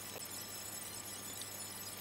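Quiet workshop room tone: a faint steady low hum over hiss, with no distinct strikes or clicks.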